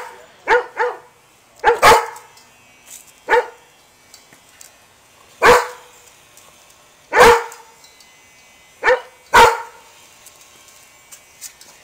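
Large curly-coated dog barking: about nine single sharp barks at uneven intervals, some in quick pairs.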